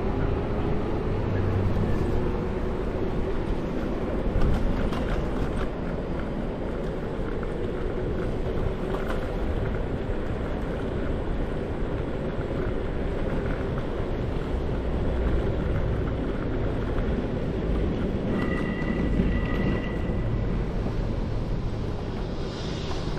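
Riding a scooter: steady wind rush on the microphone and rolling road noise, with a faint motor whine that slowly rises and falls in pitch. A short, high steady tone sounds briefly about eighteen seconds in.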